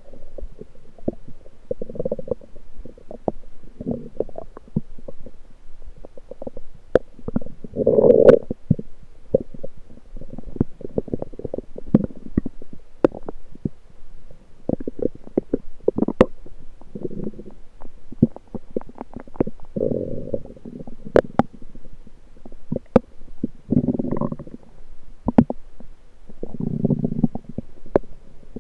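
Lower intestines gurgling, heard through a USB electronic stethoscope: irregular bouts of gurgling, the loudest about eight seconds in, with many short sharp clicks between them.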